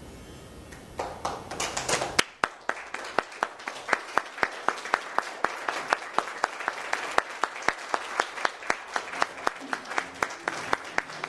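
Theatre audience applauding. Scattered clapping breaks out about a second in, then settles into clapping in unison at about three claps a second.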